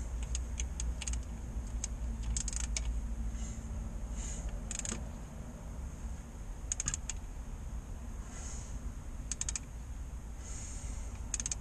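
Short bursts of rapid metallic clicking, about six in all, as the Mini Cooper S engine's crankshaft is turned over by hand with the oil pan off, over a steady low hum. This is the hunt for a knock inside the engine, which the mechanic suspects may come from a piston pin or the main bearings.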